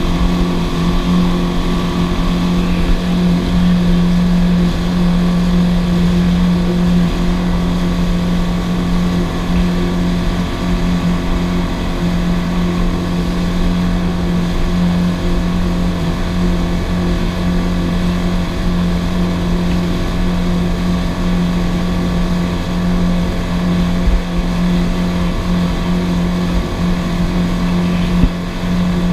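Outboard motor running at a steady high speed under load, towing a rider, with an even drone. Water rushes in the wake beneath it.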